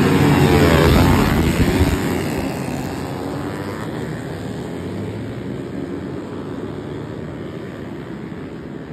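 A pack of small motorcycles revving and pulling away together, many engines at once; loudest at the start, then fading steadily as they ride off.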